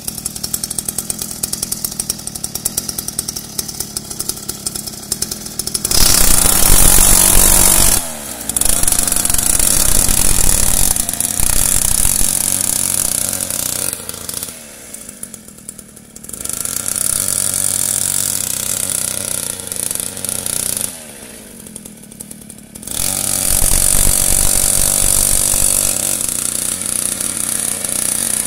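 Mini dirt bike's small two-stroke engine idling with a steady putter for about six seconds, then revving up loudly in several runs of a few seconds each as it is ridden, the pitch falling back toward idle between runs.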